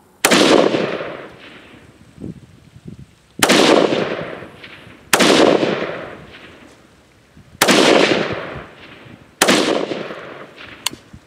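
Five single shots from a Zastava ZPAP M90PS, a 5.56 mm AK-pattern rifle fitted with a Strike Industries Dynacomp muzzle compensator, fired one at a time one and a half to three seconds apart, each crack trailing off over about a second. Slow, deliberate fire while zeroing the rifle to the newly fitted compensator.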